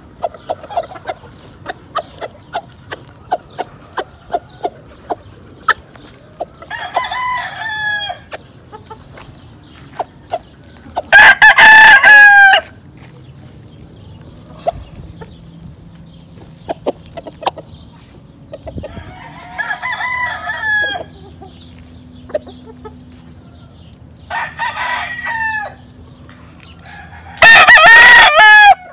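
Gamecock roosters crowing, five crows in all. Two are loud and close, about eleven seconds in and near the end, and three are fainter and farther off. Short clucks and sharp ticks come in between.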